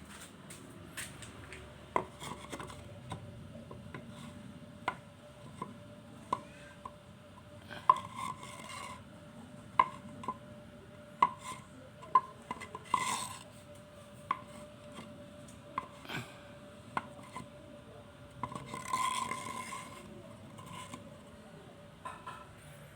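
Irregular clicks and knocks of hard objects being handled, with two brief scraping or rubbing sounds, over a faint steady hum.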